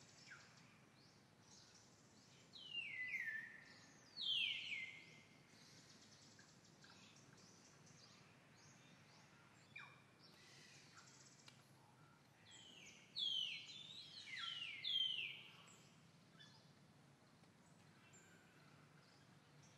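Bird calls in the forest: short, sharply falling whistled notes in two bursts, one about three seconds in and another about thirteen seconds in, over faint steady background noise.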